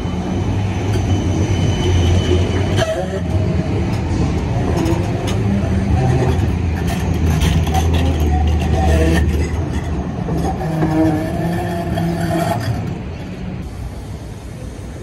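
GVB Combino tram running past close by on curved street track, with a steady low motor hum and many sharp clicks from its wheels on the rails. It grows quieter about 13 seconds in as it moves off.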